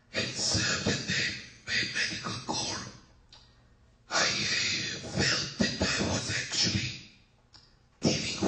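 A person's voice in phrases of one to three seconds with short pauses between them, sounding harsh and distorted.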